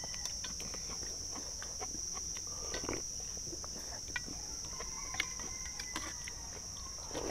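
Two men eating rice noodles and duck from stainless steel bowls: scattered slurps and chewing and short clicks of chopsticks and spoons on metal, over a steady high-pitched drone of insects.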